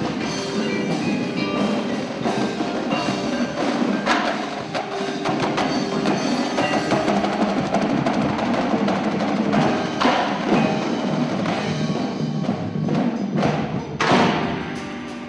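Indoor drumline and front ensemble playing together: snare, tenor and bass drums with marimbas and other mallet percussion. Near the end a loud accented hit, after which the sound dies away.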